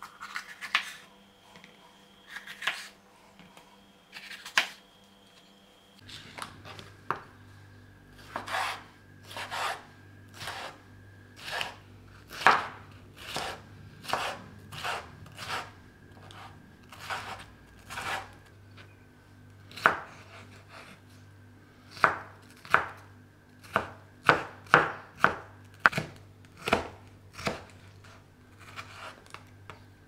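A chef's knife chopping bell peppers on a wooden cutting board: irregular sharp knocks of the blade on the board, about one a second, with a quicker run of strokes about three quarters of the way through. A faint steady low hum sits underneath from about six seconds in.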